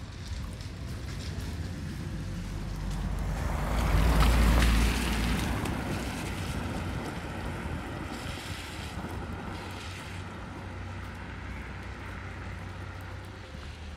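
A small hatchback car passing from behind on a wet asphalt road: the tyre hiss swells, peaks about four seconds in, and fades as it drives away. A steady wind rumble on the microphone runs underneath.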